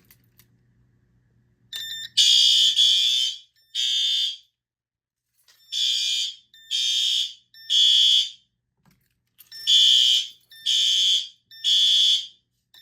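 Ceiling-mount Advance fire alarm horn strobes sounding in drill mode, starting about two seconds in. The horns give the temporal-3 evacuation pattern: three blasts of about half a second each, then a pause, repeating.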